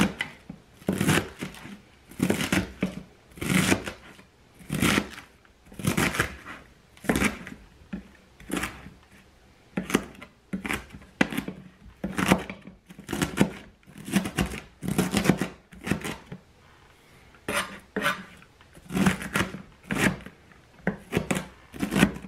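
Chef's knife slicing through a head of red cabbage on a plastic cutting board: a crisp cut ending in a knock on the board, repeated in a steady rhythm of about two strokes a second, with a short pause about two-thirds of the way through.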